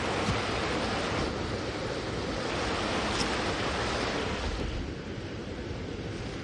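Wind gusting through the forest and buffeting the microphone: a rushing noise that swells and eases and drops off somewhat about five seconds in.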